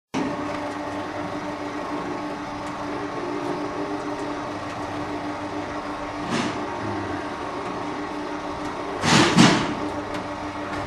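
Electric builder's hoist (TEA Beta 500) running steadily, its motor and winch giving a constant hum as it winds a bucket up the scaffold on its cable. A brief noisy burst about six seconds in and a louder double burst about nine seconds in break through the hum.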